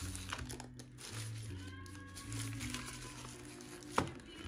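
Clear plastic packaging bags crinkling as accessories are pulled from a zippered case, with a single sharp tap about four seconds in, over background music.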